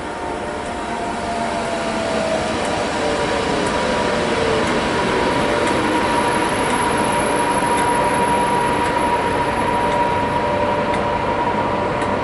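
Class 86 electric locomotive 86101, running light, arriving slowly past at close range: a steady rumble of wheels on rail and running gear that grows louder over the first few seconds. Tones glide down in pitch early on, and a steady high-pitched whine or squeal runs on from about two seconds in.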